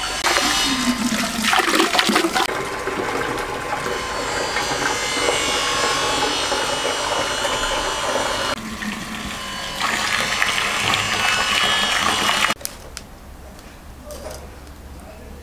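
Water gushing and splashing from a hose into a metal samovar. The rush of water runs loud and steady, then cuts off suddenly about twelve seconds in.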